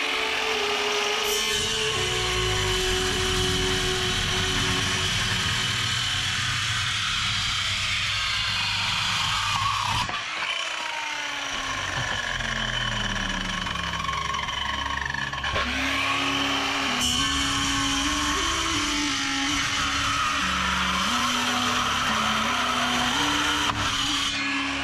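Handheld electric circular saw running and cutting into a wooden knife handle to shape it, its pitch shifting up and down as the blade bites. The sound briefly drops a little past the middle.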